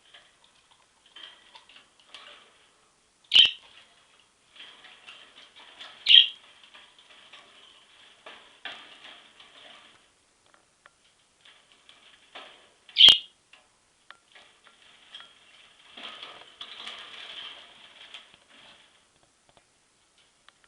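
Budgerigar chattering softly in its cage, mixed with small clicks and scratches as it moves about. Three loud, sharp sounds stand out, about 3, 6 and 13 seconds in.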